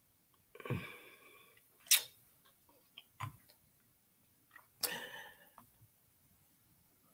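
Faint scattered sounds: a sharp click about two seconds in, the loudest, a softer tap a little past three seconds, and two short breathy rustles, one near the start and one about five seconds in.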